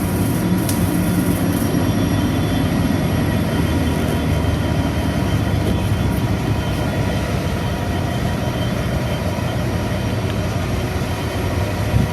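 Two 82 class diesel-electric locomotives idling steadily at the head of a stationary coal train, a continuous low engine hum. A brief knock sounds near the end.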